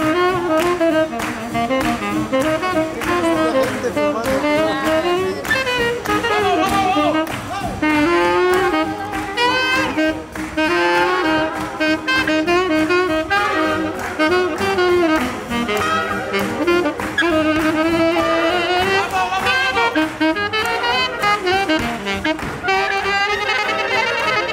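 Unamplified small jazz horn section playing a swinging tune together: saxophones, clarinet and trumpet, with hand clapping keeping a steady beat.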